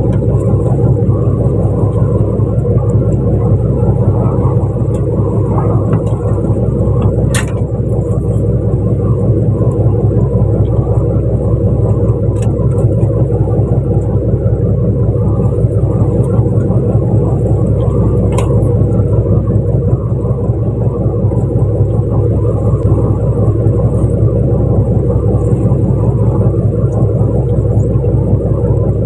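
Fishing boat's engine running with a steady, loud rumble, with a couple of sharp clicks from deck gear, one about a third of the way in and one past halfway.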